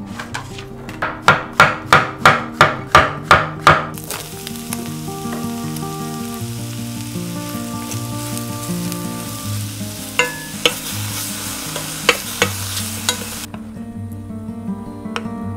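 A run of about nine quick knocks, about three a second, then sliced button mushrooms sizzling in butter in an enamel frying pan as a wooden spatula stirs them. The sizzle cuts off abruptly near the end, and a few light knocks follow.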